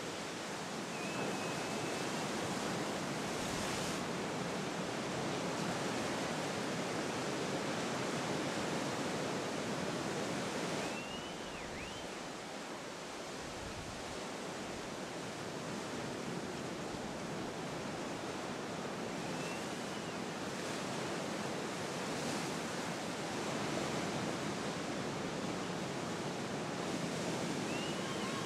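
Steady rush of ocean surf breaking, mixed with wind on the microphone, with a few brief faint high chirps now and then.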